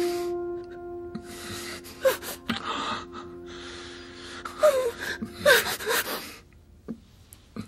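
A woman gasping and whimpering in distress: several shaky, breathy gasps and brief wavering sobs, over held tones of a soft dramatic music score that fade out near the end.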